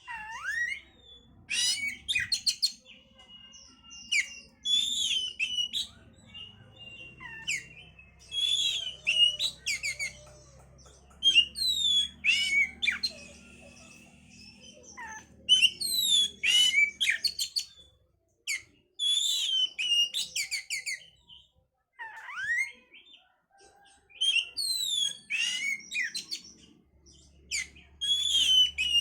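Oriental magpie-robin (kacer) singing: short phrases of clear whistled notes that slide up and down, mixed with quick runs of chattering notes. The phrases come in bursts every second or two, with brief pauses between them.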